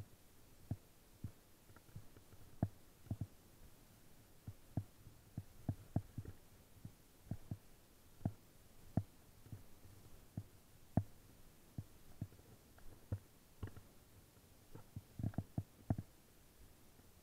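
Irregular low knocks and thuds from a fat bike jolting over a snowy trail, coming at uneven intervals with a quick cluster of them near the end.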